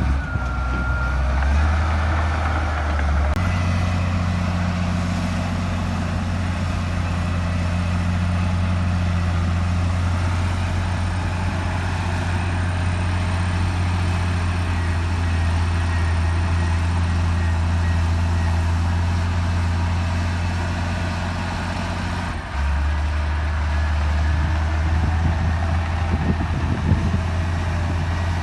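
Heavy diesel earthmoving machinery running steadily under work, a low engine drone with a faint high whine above it; the engine note changes abruptly about three seconds in and again about twenty-two seconds in.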